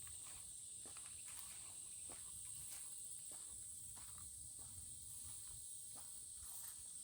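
Insects singing in a steady, high-pitched chorus, with soft, irregular footsteps.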